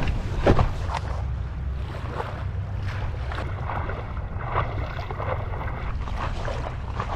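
Wind buffeting the microphone and choppy waves splashing around a small craft crossing rough sea, with a heavy steady rumble underneath.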